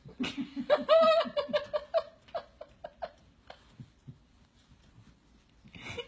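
A burst of hearty laughter: quick rhythmic ha-ha pulses that start right away and taper off over about three seconds, followed near the end by a short noisy sound.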